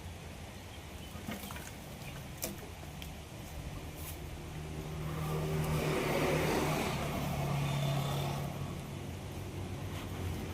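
Engine running steadily with a few sharp knocks; about halfway in it grows louder, with a rough rushing noise over the hum.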